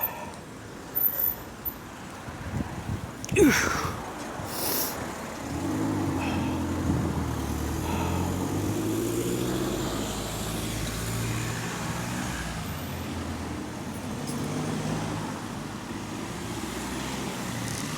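Motor vehicle engine running steadily, coming in about five seconds in and holding to the end, after a few short knocks.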